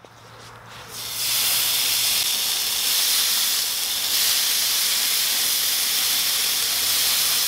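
Marinated chicken skewers sizzling on a charcoal grill: a steady high hiss that fades in over the first second.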